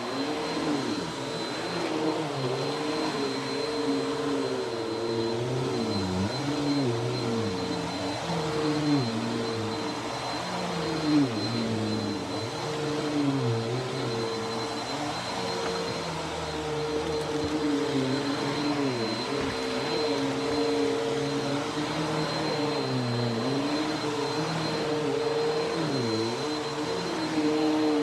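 Dirt Devil bagless vacuum cleaner running on carpet, a steady motor hum whose lower pitch wavers up and down throughout.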